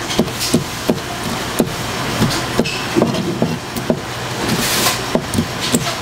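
Kitchen knife chopping live squid on a white plastic cutting board: quick, irregular knocks of the blade on the board, about two a second, over steady background noise.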